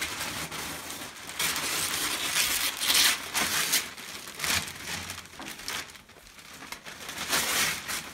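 Gift wrapping paper being ripped and crumpled by a child's hands: a series of rustling, tearing bursts, loudest from about one and a half to four seconds in and again near the end.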